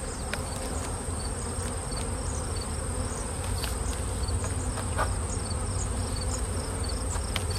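Honeybees buzzing around an opened hive, a steady hum with a few light clicks as a hive tool works at the wooden boxes.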